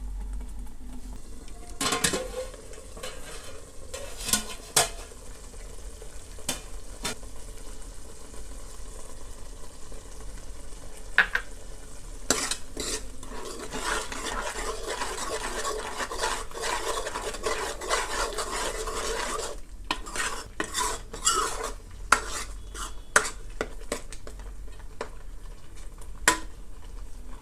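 A spoon stirring and scraping curry in a cooking pan, with sizzling and sharp knocks of the spoon against the pan. The stirring and sizzling run thicker and steadier in the middle, and the knocks come in scattered clusters.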